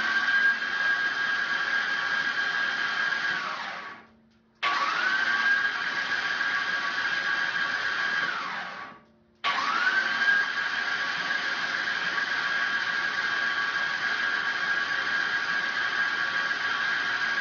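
Starter motor spinning the rock crawler's crate engine over with the spark plugs removed, to prime the oil system. It runs three times as a smooth, even whine that rises as it spins up and then holds steady, with short pauses about 4 and 9 seconds in.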